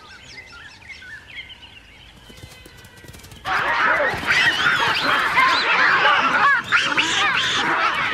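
Faint bird calls, then about three and a half seconds in a sudden loud chorus of many baboons screaming at once, overlapping calls that rise and fall in pitch.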